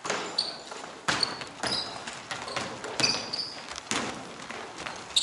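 Basketball bouncing on an indoor court in several uneven thuds, mixed with short high squeaks of sneakers on the floor.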